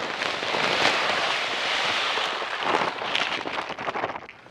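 Fish-food pellets pouring from a bag into the metal hopper of an automatic fish feeder: a steady rushing hiss that thins out and fades near the end as the bag empties.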